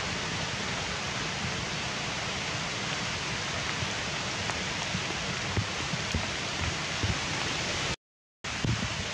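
A steady, even hiss of outdoor background noise, like rain or rushing water, that cuts out to silence for about half a second near the end.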